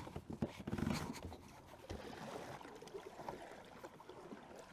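Double-bladed kayak paddle strokes, water trickling and splashing off the blades. A few knocks and rubbing sounds near the start, then a steady water wash.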